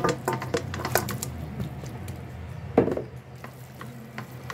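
Marinated raw chicken pieces tipped from a plastic basin into a stainless steel pot: wet slaps and squishing with clattering knocks of the basin against the pot, the loudest knock a little before three seconds in.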